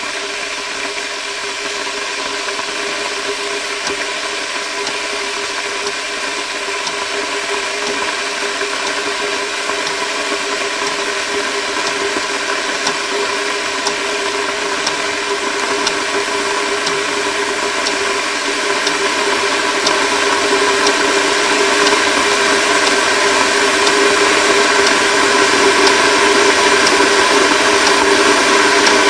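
A steady, noisy drone with several held tones that grows slowly louder, with a wall clock's faint ticking about once a second.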